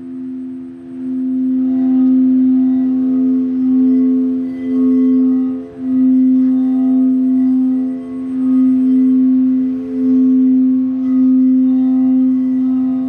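Tibetan singing bowl rubbed around its rim, sounding a steady low hum with a few higher overtones. The hum builds over the first couple of seconds, then swells and fades in slow pulses, dipping briefly about halfway through.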